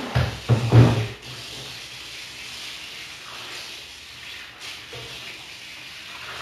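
Glass refrigerator shelf being washed in a kitchen sink: a few loud knocks in the first second, then steady sponge rubbing on the glass under running tap water.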